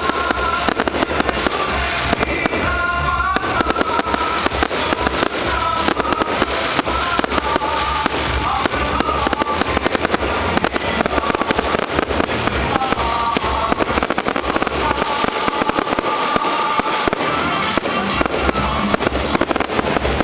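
Fireworks salute going off: a dense, continuous run of rapid bangs and crackles, with music playing over it.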